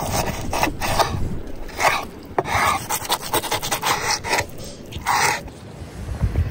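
Kitchen knife sawing through raw cow tail, fat and cartilage, in a series of short rasping strokes about every half second to a second, the blade scraping on a wooden cutting board, over a low rumble.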